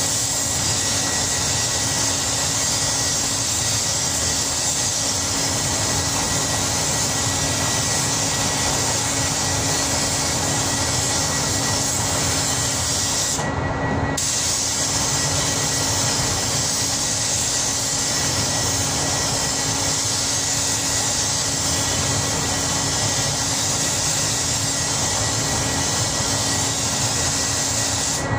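Compressed air hissing steadily from a gravity-feed paint spray gun as paint is sprayed onto a car panel, over the steady hum of the spray booth's ventilation. The hiss stops for about half a second about halfway through, then resumes.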